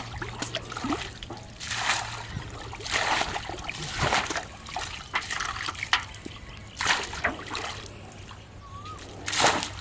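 Water being bailed out of a shallow muddy pool with a steel bowl: scoop after scoop flung out, a splash every second or two.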